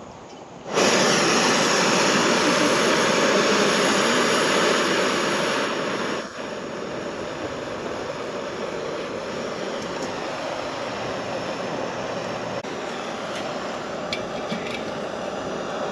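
Gas camp stove burner lit and burning at full flame with a steady rushing hiss. The sound starts suddenly and drops to a lower level about six seconds in, as the flame is turned down.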